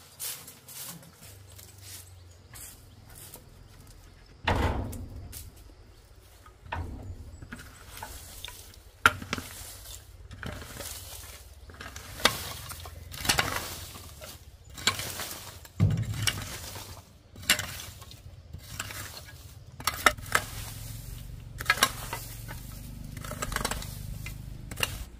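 Irregular knocks and clinks of hard objects being handled, like pots, dishes and utensils, over a low steady hum.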